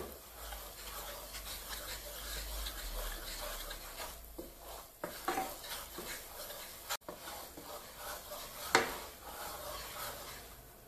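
Wooden spatula stirring and scraping flour through foaming butter in a frying pan, with a soft sizzle: a light roux being toasted over low heat. A few sharper knocks come in, the loudest near the end.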